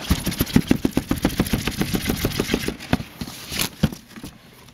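Cardboard box being handled close to the microphone: a fast run of scraping, rustling clicks, about ten a second, then slower, with a couple of louder knocks just past the middle.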